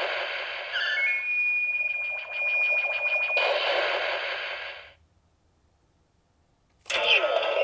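Bandai CSM Decadriver toy belt playing its electronic KamenRide transformation sound effect: a dense synthesized hiss with a high steady tone and rapid pulsing over it, cutting off about five seconds in. Near the end a short new burst of electronic sound starts.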